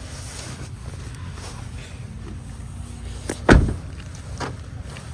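A van door shut with a single loud thud about three and a half seconds in, followed by a softer knock, over a steady low rumble.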